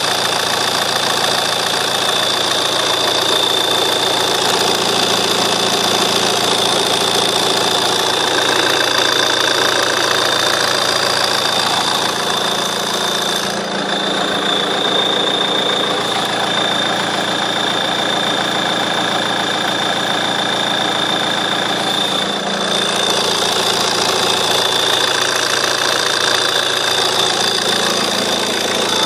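JTD common-rail turbodiesel engine idling with a steady, high-pitched chirping whine over the engine noise: an unwanted noise at idle whose source is being hunted.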